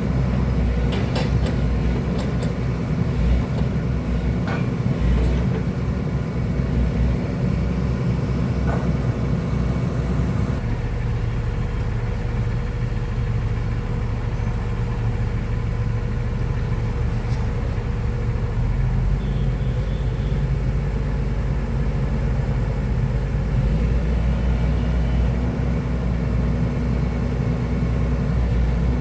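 Excavator's diesel engine running steadily with a low rumble, with a few short clicks or knocks in the first nine seconds. The engine note changes abruptly about ten seconds in.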